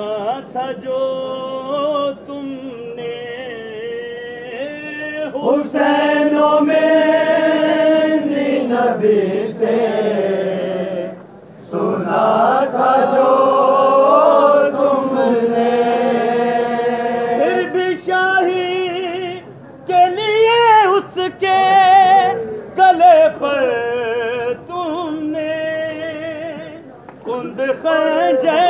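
Men singing a noha, a Shia mourning lament in Urdu, as a group. The melody rises and falls in long held lines, with short breaks between verses.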